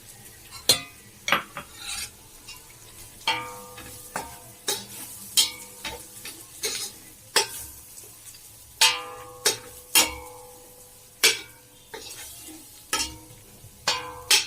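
A metal spoon stirring a biryani masala of onions, ginger-garlic paste and masala powder frying in oil and butter, knocking against the pan in a dozen or so ringing clinks at an uneven pace over a soft sizzle.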